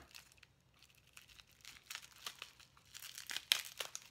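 Bubble wrap and plastic packaging crinkling and tearing as a well-wrapped package is opened by hand. Nearly quiet at first, then scattered small crackles that get busier toward the end.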